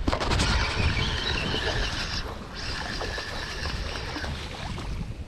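A fishing reel whirring in two spells with a short break between them, as line runs on the reel while a fish is hooked, over low knocking and handling rumble.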